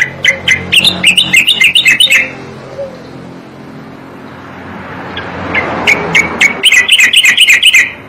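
Striated grassbird (cucak koreng) singing two fast phrases of sharp, high chattering notes, the first at the start and the second in the last two or three seconds. Between the phrases a rushing noise swells and fades.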